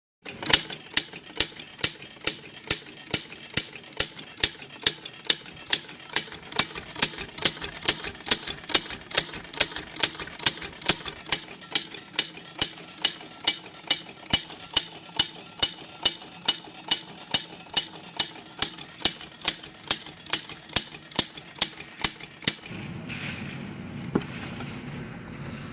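Homemade Gatling-style water gun mechanism running, clicking sharply and regularly about twice a second. Near the end the clicking stops and a low rushing noise takes over.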